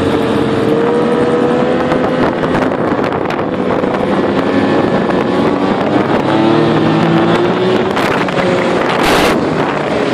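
Snowmobile engine running at speed while towing, its pitch wavering up and down, with wind buffeting the microphone. A brief rush of noise about nine seconds in.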